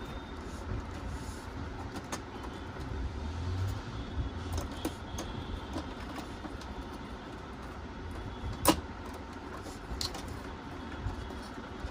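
Scattered clicks and clacks of hands working inside a Dell OptiPlex 790 desktop case, with one sharper click about three-quarters of the way through, over a steady low rumble.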